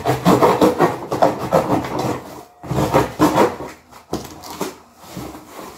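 Fingers scratching and peeling packing tape off a cardboard box, with cardboard rubbing and scraping, dense at first and then in separate bursts.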